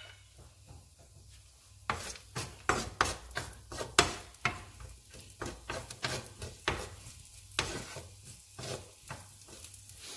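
Wooden spatula stirring sliced garlic sautéing in oil in a nonstick frying pan: irregular scraping strokes against the pan over a sizzle. The strokes start about two seconds in, after a quieter start.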